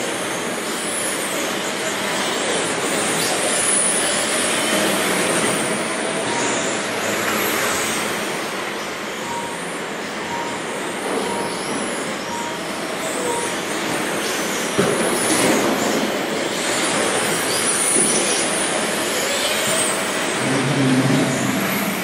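Several radio-controlled race trucks running laps together: high motor whines rise and fall as they speed up and slow through the corners, over a steady din.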